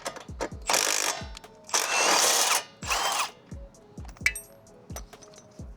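A tool spinning the rear axle nut off a Honda Shadow in three bursts of noise, the longest about a second, over a background music beat with a regular low thump.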